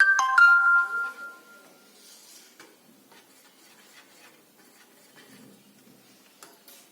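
A metal utensil strikes a steel kitchen vessel three times in quick succession, and the vessel rings out with a clear tone that fades over about a second and a half. Faint light clicks of utensils being handled follow.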